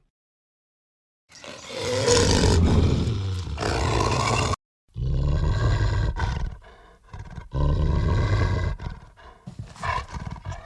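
Film sound effects of a werewolf roaring: a long roar that swells over about three seconds, then, after a brief silence, two more roars and some shorter, quieter snarls near the end.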